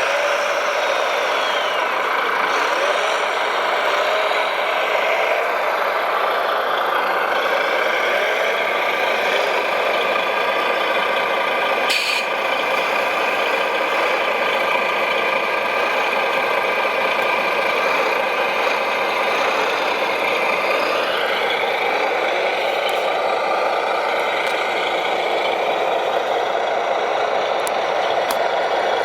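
Radio-controlled model trucks and construction machines running, their electric motors and gearboxes whining and changing pitch as they speed up and slow down.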